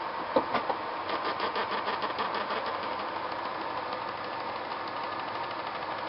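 A steady mechanical hum with a few held tones in it. A few sharp knocks come about half a second in, followed by a quick, even pulsing for a couple of seconds that fades back into the hum.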